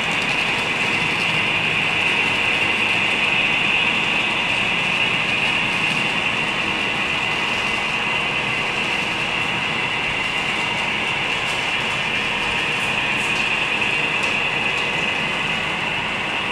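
Model coal train rolling along the track, a steady whirring noise with no breaks.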